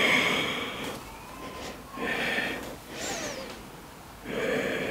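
A woman breathing deeply and audibly while holding a yoga pose: three long breaths, heard near the start, about two seconds in and near the end.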